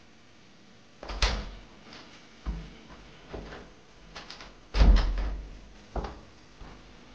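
A series of knocks and thumps with lighter clicks between them, like a door or cupboard being handled; the loudest thumps come about a second in and about five seconds in.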